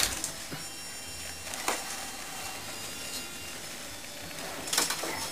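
Plastic toy parts knocking and clicking a few times as they are handled, with quiet room noise in between; a small cluster of clicks comes near the end.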